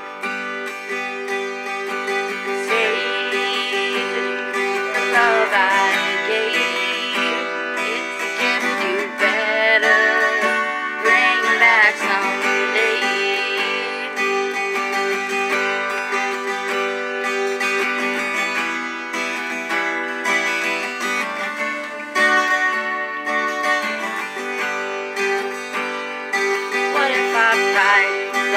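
Acoustic guitar strummed in a slow country-folk song.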